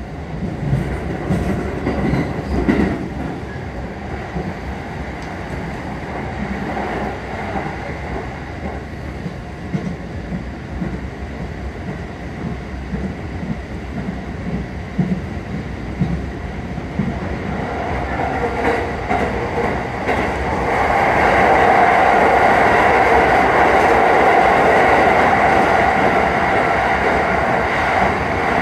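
Keiyo Line commuter train running, heard from inside the car: steady rumble and clatter of the wheels on the rails. About twenty seconds in it grows louder, and a steady whine joins it.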